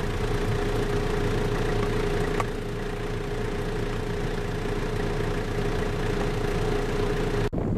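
A vehicle engine running steadily, with a constant mid-pitched hum over it. It is cut off abruptly near the end.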